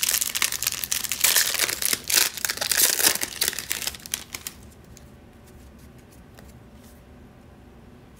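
Wrapper of a Topps 2021 Series 1 baseball card pack crinkling and tearing as it is pulled open. The crinkling stops about halfway through, leaving only a few faint clicks of the cards being handled.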